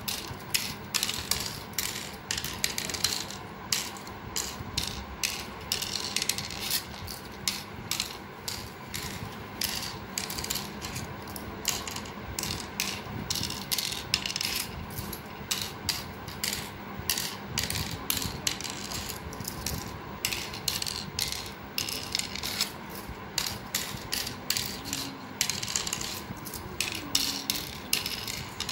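Cowrie shells clicking as they are dropped one by one into the cups of a pallanguzhi board during sowing: a quick, uneven run of small clicks, several a second.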